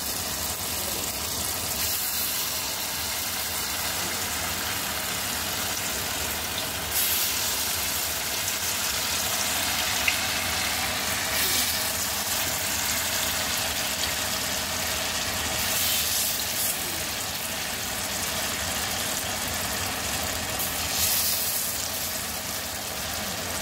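Batter frying in hot oil in a stainless steel wok: a steady sizzle that swells briefly about four times.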